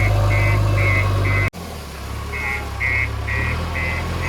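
Heavy diesel engine running with a reversing alarm beeping about twice a second. About a second and a half in, the sound cuts out abruptly; the engine returns at once, quieter, and the beeping resumes shortly after.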